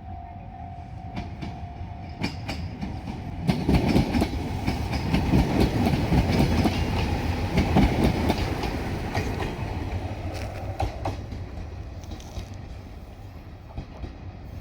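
Diesel railcar passing on the line, its wheels clacking over the rail joints. It swells to its loudest about four to nine seconds in, then fades as it moves away.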